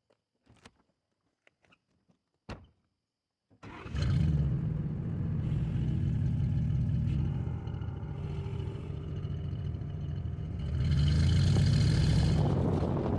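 A few faint clicks, then about three and a half seconds in the 4.6 L V8 comes to life and runs with a steady low rumble, growing louder near the end as it is revved or pulls. The engine has been misfiring on cylinders 7 and 8, and this run is a test after a computer module change and battery reset.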